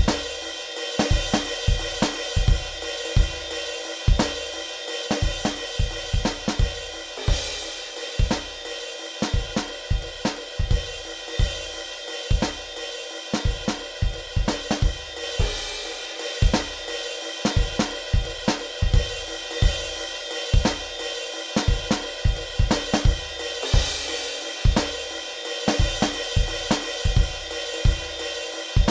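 A soloed drum kit track playing a beat: kick drum hits under a constant wash of hi-hat and cymbals, with snare, heard with the channel effects switched on.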